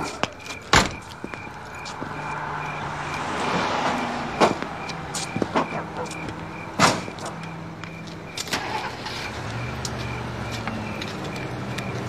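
Film soundtrack: a motor vehicle's noise swells and fades about three to four seconds in. Several sharp knocks a few seconds apart sound over a low steady drone.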